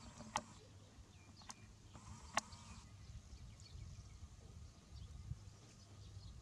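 Two sharp clicks about two seconds apart over a faint low rumble.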